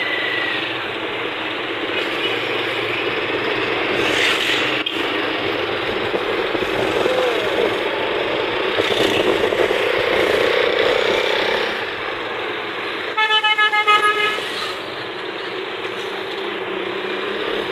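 Steady road and engine noise from riding through busy street traffic. About thirteen seconds in, a vehicle horn sounds in a quick series of short toots.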